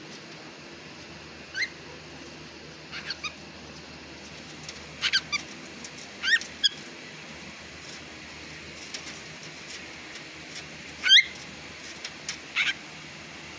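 Cockatiel giving short whistled chirps, singly and in quick pairs, with the loudest call about eleven seconds in, over a steady low hum.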